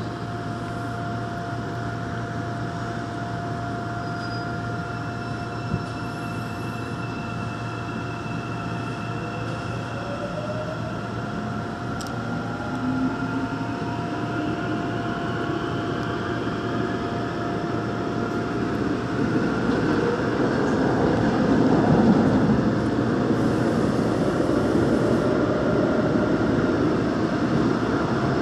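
Daegu Metro Line 2 electric train pulling away from a station, heard from inside the car: its traction motors whine in tones that rise in pitch as it speeds up, while the running noise of wheels and tunnel grows louder toward the end.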